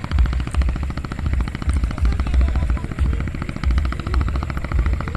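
An engine running steadily with a fast thumping beat and a deeper throb about twice a second, fairly loud; it sounds like an old Kubota-type diesel engine.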